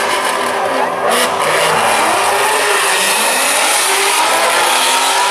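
Drag-race car launching from the start line and accelerating hard down the strip, its engine running at high revs with the pitch rising and falling.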